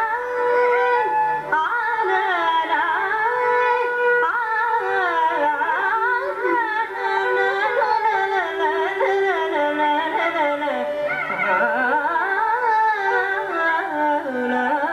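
Carnatic vocal music: a woman singing a devotional song in long, sliding, ornamented phrases, with violin accompaniment.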